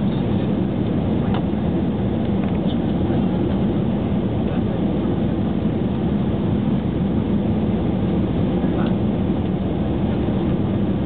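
Steady low roar of an airliner's engines and rushing air, heard inside the passenger cabin.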